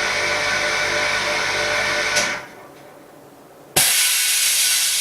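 Phone LCD vacuum laminator and bubble-remover machine running with a steady hum and hiss, which clicks off about two seconds in. After a short lull, a sharp click and a sudden loud hiss of air being released from the machine's chamber at the end of a cycle stage.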